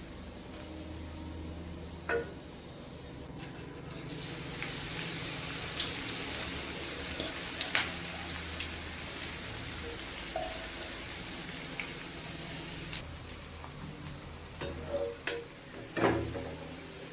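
Bitter gourd chips deep-frying in hot oil with a steady, subdued sizzle that has died down, the sign that they are nearly done. A few sharp knocks of a utensil against the pan, the loudest about a second before the end.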